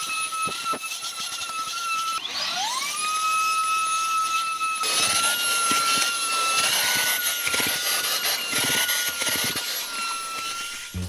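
Xiaomi Z1 Pro cordless handheld vacuum cleaner running with a steady high-pitched motor whine. About two seconds in, the motor briefly cuts out and spins back up with a rising whine. From about five seconds in, a rougher hiss joins the whine.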